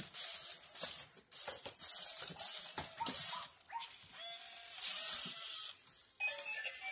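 Toy robot dogs' motors and gears working in short, repeated bursts of hissing whir with clicks between them as the robots move. Near the end short electronic beeping tones start.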